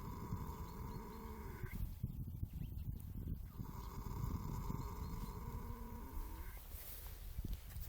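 A sleeping horse snoring: slow snoring breaths a few seconds long, with a pause between them about two seconds in.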